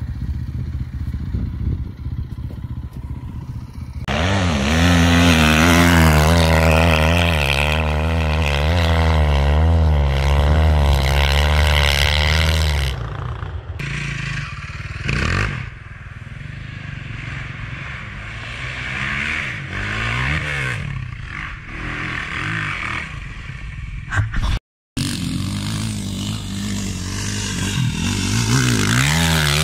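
Enduro dirt bike engines across a run of riding clips. A motorcycle idles. About four seconds in, an engine is revved hard, its pitch swinging quickly up and down for several seconds. After that, bikes are ridden on trails with the engine note rising and falling, and the sound cuts out for a moment about 25 seconds in.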